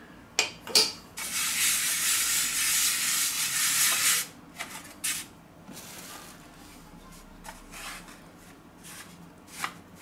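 A couple of sharp clicks, then a hand rubbing flour across a metal pizza peel, a rough scraping hiss lasting about three seconds. Light clicks and rustles of dough being handled follow.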